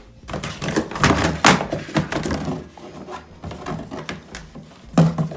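Handling noise from a cardboard box of old computer peripherals: a cable dragged out over plastic keyboards, with irregular knocks, clatter and rustling, and one heavier thunk about five seconds in.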